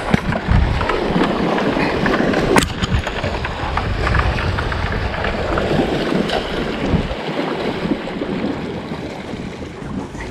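Wind buffeting the microphone with rough, rustling noise throughout, and one sharp knock about two and a half seconds in.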